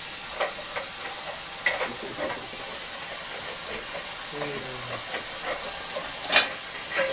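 A few light clinks and knocks from dishes in a dishwasher rack as a dog pokes its head in among them, the sharpest about six seconds in, over a steady hiss.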